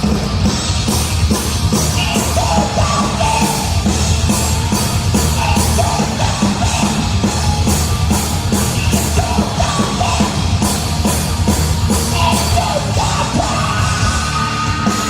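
Live heavy metal band playing at full volume, with shouted vocals over distorted guitar, bass and fast, even drum hits.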